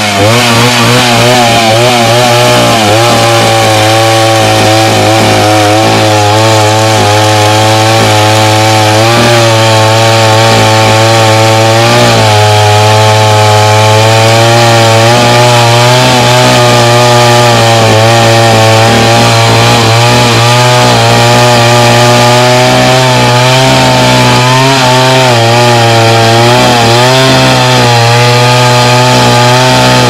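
Two-stroke chainsaw with a long bar running at full throttle while making the felling cut through the base of a thick tree trunk. The engine note holds steady, wavering in the first few seconds and dipping briefly now and then as the chain takes the load.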